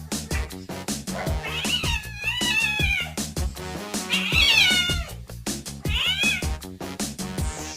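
A domestic cat meowing three times: a long wavering meow, a second one, then a short one, over electronic background music with a steady beat.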